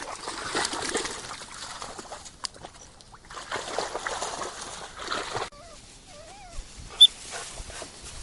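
British Labrador Retriever puppies stirring about, with a short wavering whimper a little past halfway. A quick pip on a dog-training whistle follows about seven seconds in.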